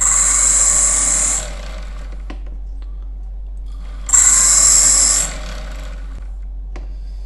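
A graver ground against a coarse diamond disc spun by a micromotor, twice, each time for about a second, with a high hiss. This is the rough shaping of the graver before finishing. A steady motor hum runs between the two contacts.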